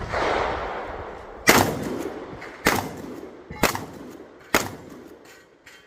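12-gauge pump-action shotgun fired four times in quick succession, about a second apart, each shot a sharp crack with a short echoing tail. Before the shots there is a rushing noise that fades over the first second and a half.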